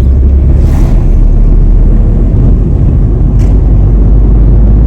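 A car driving along a road, heard from inside the vehicle: a loud, steady low rumble of road and engine noise.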